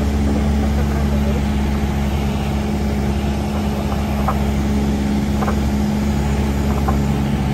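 Cessna 172S Skyhawk SP's four-cylinder Lycoming engine and propeller droning steadily in flight, heard inside the cabin.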